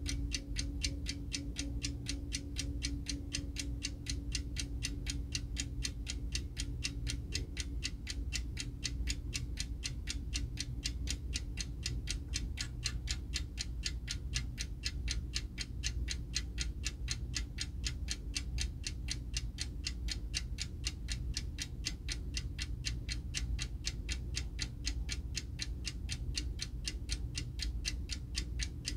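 Tokyo Clock eight-day-wind alarm clock from the Shōwa 30s (1955–64), its movement running and ticking steadily at about five ticks a second.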